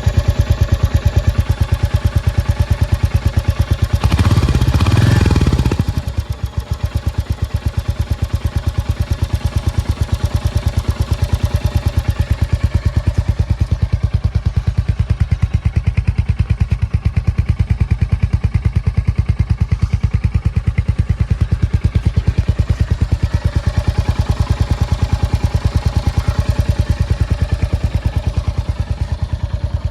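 Royal Enfield Hunter 350's single-cylinder engine idling with a 'kit kit' tapping from the engine, a noise the owner believes every Hunter has. It runs briefly louder around four to six seconds in.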